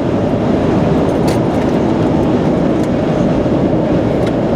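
Steady road noise inside a moving car: tyre rumble and engine running at driving speed, with a couple of faint ticks.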